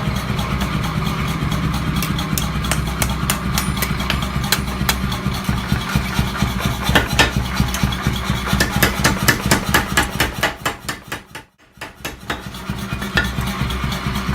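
Quick light metal-on-metal taps, several a second at times, over a steady machine hum in a blacksmith's workshop. The sound drops almost to silence for a moment about three quarters of the way through.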